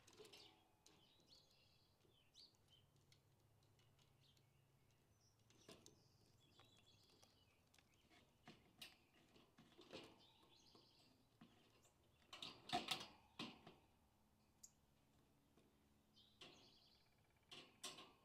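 Faint, scattered clicks and knocks of a wire cage and its dishes being handled as a seed dish and water feeder are set in, with a short run of louder knocks about two-thirds of the way through. Faint bird chirps sound now and then in the background.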